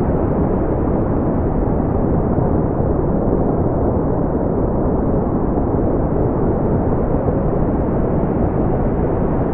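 Continuous brown noise: a steady, deep rumbling hiss, strongest in the bass and dull in the highs, with no changes.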